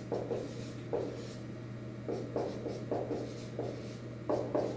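Dry-erase marker writing numbers on a whiteboard: a series of short, separate marker strokes.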